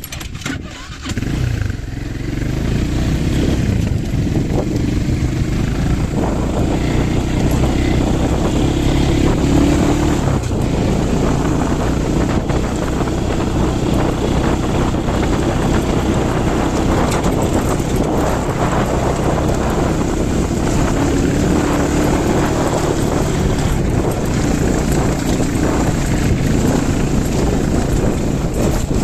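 A motor vehicle's engine running steadily at an even pitch, with road or wind noise around it.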